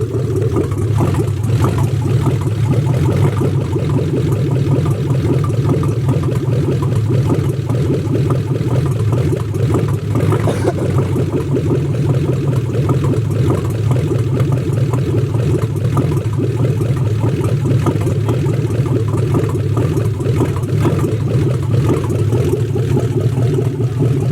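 V8 engine swapped into a Nissan 240SX, idling steadily on the first run of the newly finished swap.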